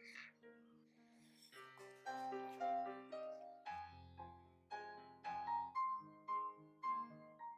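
Background music led by a piano, playing a gentle melody.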